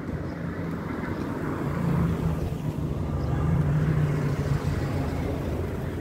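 Wind buffeting a phone's microphone: a low, fluttering rumble that swells a little in the middle.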